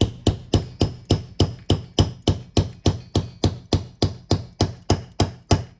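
A hammer tapping rapidly and evenly, about four blows a second and some twenty in all, each with a short ring.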